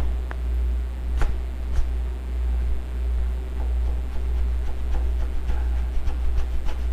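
Light clicks and rustles of vinyl wrap film being worked by hand onto a car body panel, over a steady low hum. The two sharpest clicks come about a second and two seconds in.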